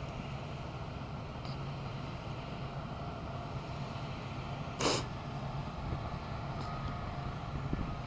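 Steady low rumble from a large barn fire and the vehicles around it, with one short, sharp burst of noise about five seconds in.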